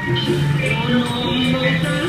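Background music: a melody of held notes changing in pitch.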